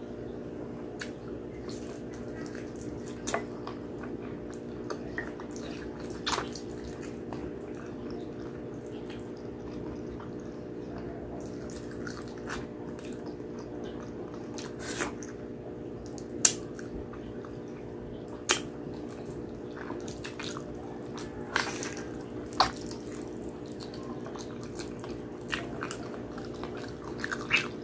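Close-up chewing of braised pork hock and rice, with wet, sticky mouth clicks and lip smacks at irregular moments. A steady low hum runs underneath.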